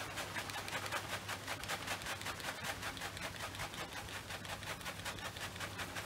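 Dried mealworms rustling and pattering out of a plastic bag as it is shaken into a bird feeder, a quick steady rhythm of several shakes a second.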